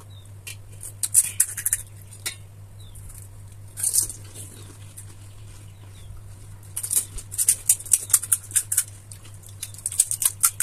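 Crisp pani puri shells cracking and crunching in quick clusters of sharp crackles as they are broken open and eaten, over a steady low hum.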